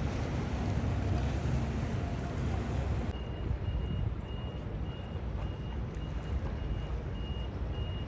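Low steady rumble of boat engines, with wind on the microphone. From about three seconds in, a faint high beep repeats about twice a second.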